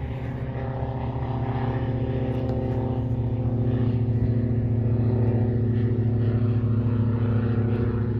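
Diamond DA40 NG light aircraft's turbodiesel engine and propeller running with a steady hum, growing louder over the first four seconds and then holding.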